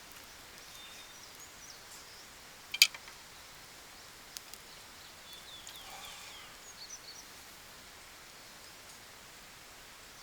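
Small birds chirping now and then over a faint, steady outdoor background noise, with one sharp click about three seconds in.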